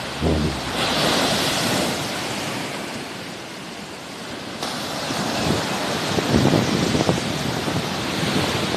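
Sea waves washing in, swelling about a second in, easing off, then building again about halfway through, with wind buffeting the microphone now and then.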